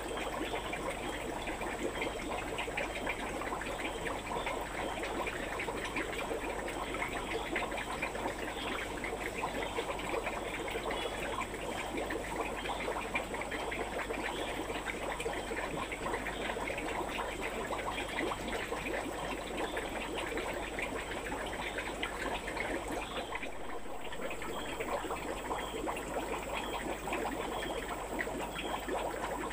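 Water trickling and splashing steadily, with a faint, steady high-pitched whine above it.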